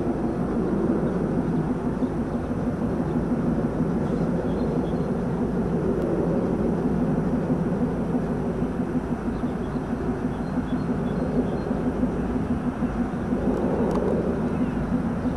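DR1A diesel multiple unit approaching, its diesel engines giving a steady low drone.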